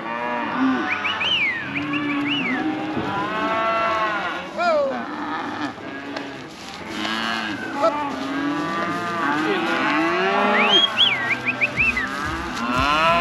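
Several cattle mooing and bawling, many calls overlapping one after another. A few high, short chirps come in quick runs about a second in and again near the end.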